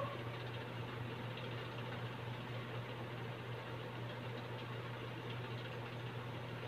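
Steady low hum over a faint hiss: room tone.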